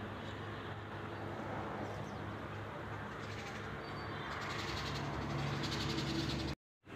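Steady outdoor background noise with birds calling, the bird sounds clearest in the second half; the sound drops out abruptly for a moment near the end.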